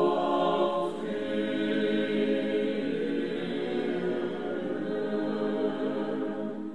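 A choir singing slow music with long held notes.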